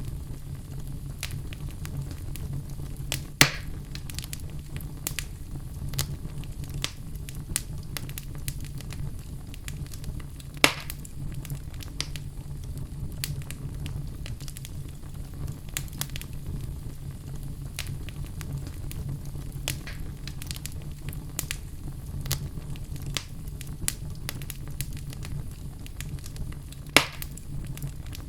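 Fire crackling: a steady low rumble with many small snaps, and three louder pops, one a few seconds in, one about ten seconds in and one near the end.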